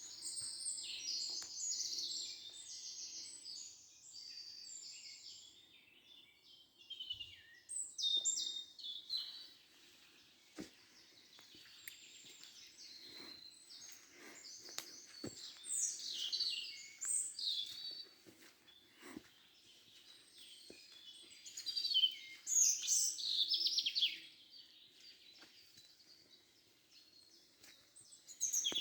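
Songbirds singing and chirping: overlapping rapid high trills and twittering notes that come and go, with a few faint clicks.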